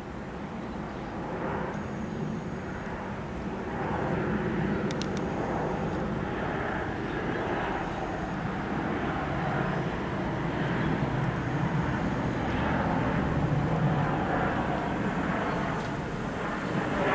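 Jet engines of a Virgin Australia Boeing 737 on final approach with its landing gear down, a steady rumble that grows louder about four seconds in and holds as the airliner flies low past.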